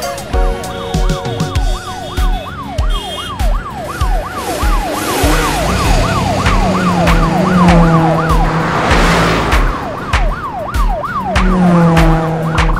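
Cartoon siren sound effect in a rapid yelp, rising sweeps a few times a second, stopping about nine seconds in, over background music with a steady drum beat. A low hum swells in the middle and again near the end, with a whoosh about nine seconds in.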